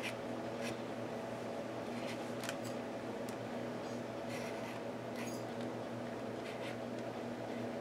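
Short scratchy strokes of a paint marker's tip drawn across a paper journal page, about eight separate strokes over several seconds, over a steady low hum.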